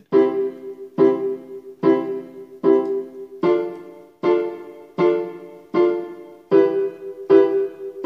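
Electronic keyboard on a piano voice playing a series of three-note chords staccato, each chord struck short and detached, about one strike a second with a space between them. The chord changes after the fourth strike.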